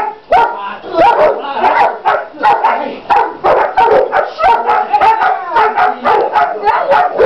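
Young dogs barking rapidly and repeatedly, about two to three barks a second, at a decoy in protection training, with more than one dog barking.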